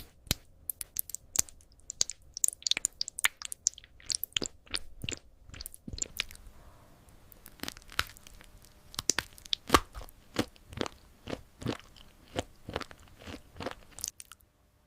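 Close-miked ASMR eating sounds: crunchy desserts being bitten and chewed. The first half is a dense run of sharp, crackly crunches. From about six seconds in come fewer, more evenly spaced crunches.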